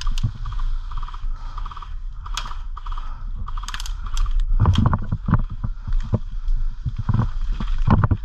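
Short bursts of airsoft gun fire, each a rapid mechanical rattle, through the first half. From about halfway, heavy thuds and knocks of footsteps and gear as the player moves, the loudest near the end.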